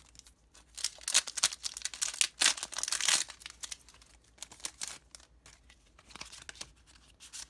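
Foil wrapper of a Pokémon card booster pack being torn open and crinkled: a dense crackling burst from about a second in until about three seconds in, then lighter intermittent rustling.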